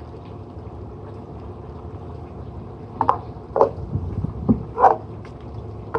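Water plopping and splashing four or five times in quick succession around the middle, over a steady low hum.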